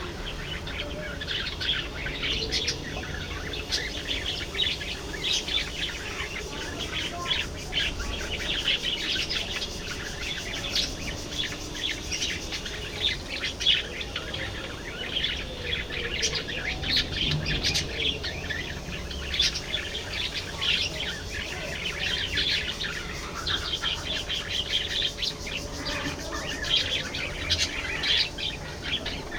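A flock of budgerigars chattering: many short chirps overlapping in a continuous stream.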